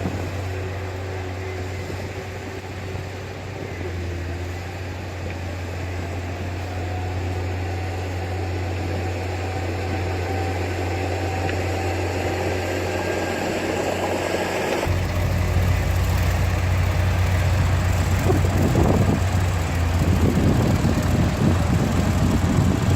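Diesel engine of heavy earthmoving machinery running steadily, its pitch creeping slowly upward. About two-thirds of the way through, the sound changes abruptly to a louder, deeper engine noise with irregular rough, clattering noise over it.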